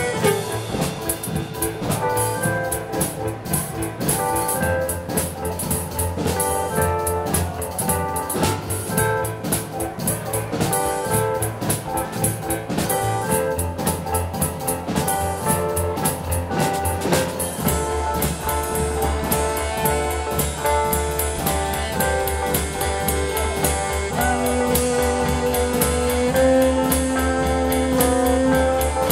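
Live contra dance band playing a steady dance tune: fiddle with keyboard and drum kit keeping an even beat. A stronger low bass line comes in a little past the middle.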